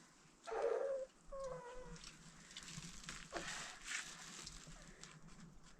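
Two short animal calls about a second apart, the second a falling tone, followed by faint rustling and a couple of light knocks.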